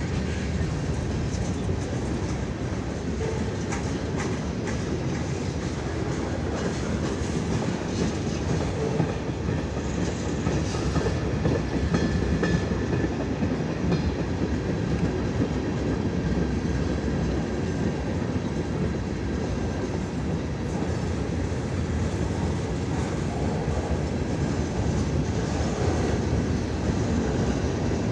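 A CN train's cars rolling past with a steady wheel-on-rail noise that holds an even level throughout.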